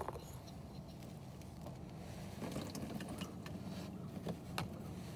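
Light clicks and plastic taps as a 6.7 Cummins oil filter cartridge is handled and pulled free of its plastic housing cap, over a steady low hum that gets a little stronger about halfway through.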